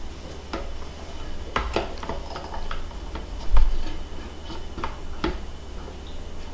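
A clear glass bowl knocking and clicking against the rim of a blender jar as chunks of avocado are shaken out of it into the jar. The clicks come irregularly, about seven of them, with one heavier thump about three and a half seconds in.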